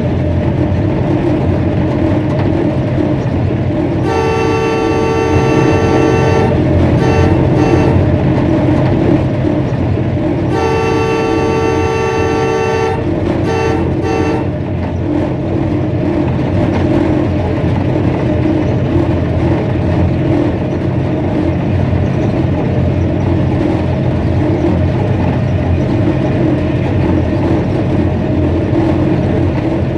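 Air horn of a ZCUP-30 diesel-electric locomotive sounding two long blasts, each followed by a few short toots, heard from the cab over the steady rumble of the engine and wheels on rail.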